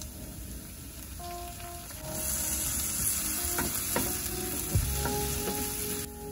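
Chopped onion sizzling in oil in a nonstick frying pan while a wooden spoon stirs it. The sizzle grows louder about two seconds in, with a few short knocks and scrapes of the spoon against the pan.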